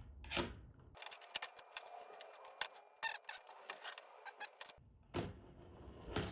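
3D-printed plastic lamp parts clicking and knocking as they are handled and pins are pushed into the brackets: a quick run of sharp clicks through the middle, with a single louder knock near the start and another near the end.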